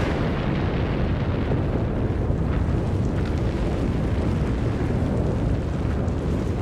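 Sakurajima volcano erupting: a steady, deep rumble as the ash column billows out of the crater.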